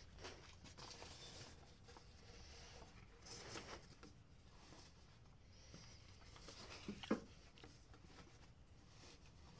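Faint rustling and handling noises from work at a manual carousel screen-printing press, with a soft swish about three seconds in and a light knock about seven seconds in.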